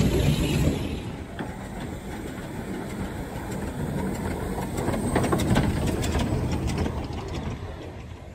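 Small narrow-gauge Hunslet quarry 0-4-0 saddle-tank steam locomotives running slowly past, with steam noise and the clanking and clicking of wheels and running gear. The sound is loudest at the start as the first engine passes, and swells again about five seconds in as a second engine goes by, then fades.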